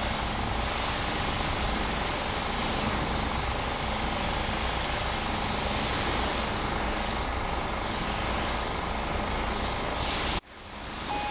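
A pressure washer running, its lance spraying water onto the front of a coach: a steady rush of spray that cuts out abruptly for a moment near the end.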